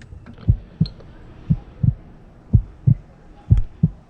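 Heartbeat sound effect: low lub-dub thumps in pairs, about one pair a second.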